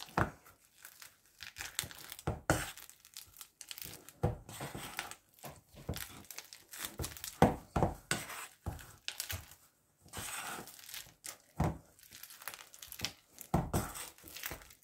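Potato masher stamping soft cheese in a stainless-steel bowl: irregular squelching thuds, roughly one or two a second.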